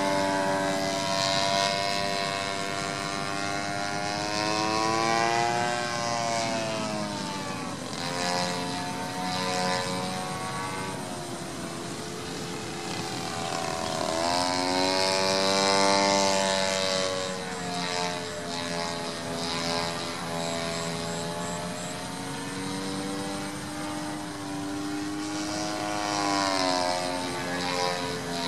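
Mintor 50cc two-stroke gas engine and propeller of a large radio-controlled aerobatic plane (SDS Hobby Slick540) in flight. Its pitch climbs and drops several times through the aerobatic routine.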